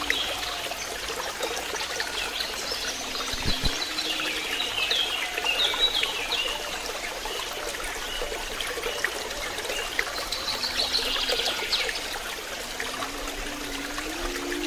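Water trickling steadily into a pond, with small birds chirping in the background.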